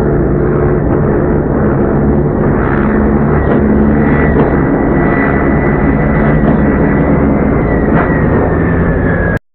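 Turbocharged front-wheel-drive drag cars running hard down the strip: loud, steady engine and exhaust noise with a high whine that sinks slightly near the end, and a few sharp pops. It cuts off suddenly near the end.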